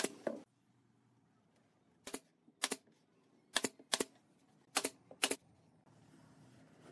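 Pneumatic nail gun firing brads into wood: about eight sharp shots, mostly in pairs about half a second apart, with short pauses between the pairs.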